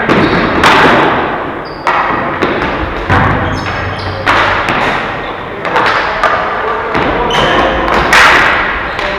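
Ball hockey play: repeated sharp thuds and clacks of the ball and sticks striking the rink boards and each other, each hit echoing briefly.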